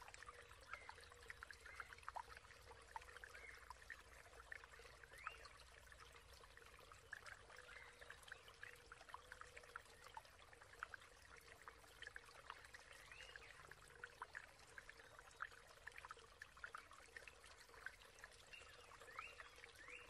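Faint trickling and babbling of a small stream, full of little water plinks and quick rising bubbly chirps, over a faint steady hum.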